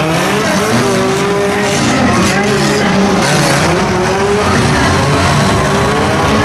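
Several dirt-track stock cars' engines running and revving as they slide through a turn on the dirt oval. Their overlapping pitches rise and fall over a constant rush of noise.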